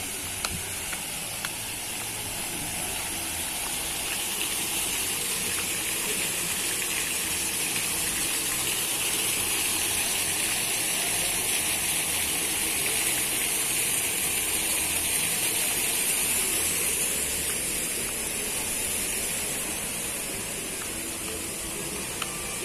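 Steady rushing of gushing water from a water-park waterfall and pool, swelling gradually and then easing off.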